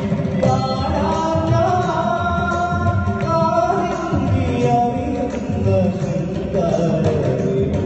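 Live performance of a song: a singer's held, wavering vocal line over keyboard and guitar accompaniment through a stage sound system.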